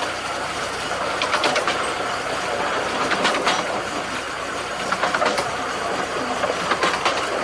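Miniature railway carriage running on 15-inch gauge track: a steady rumble of wheels on rail, with a short group of clicks about every two seconds as the wheels cross the rail joints.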